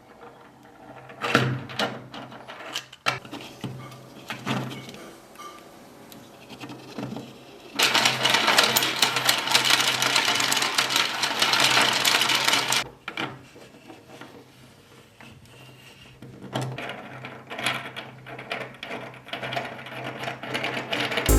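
A small machine: scattered clicks and knocks over a steady low hum, then a dense, rapid mechanical clatter for about five seconds in the middle.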